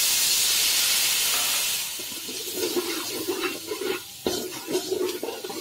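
Water poured into a hot pan of fried spice paste, with a loud rush and hiss for about the first two seconds. Then the paste sizzles and bubbles while a slotted metal spoon stirs and scrapes it around the pan.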